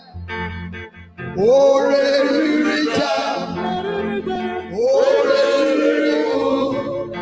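Live gospel praise music: a man sings the lead through a microphone, with long held notes, over a band with a steady bass line.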